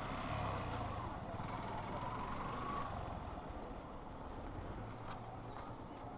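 Motorcycle riding in traffic heard through a helmet-mounted microphone: steady low engine and road rumble with surrounding vehicles, the wind noise held down.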